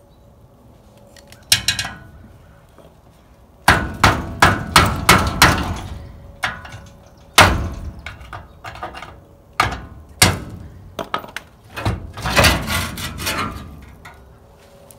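Hammer blows on the steel pressed front bumper of a 1958 VW bus, knocking it loose: a single blow, then a quick run of about six, a few spaced blows, and another run near the end.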